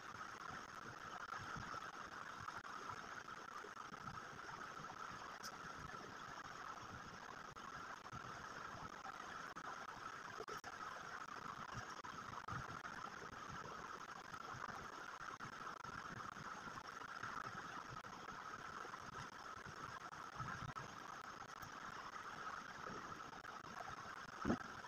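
Faint, steady hiss of room noise, with a few soft knocks and one sharper knock near the end.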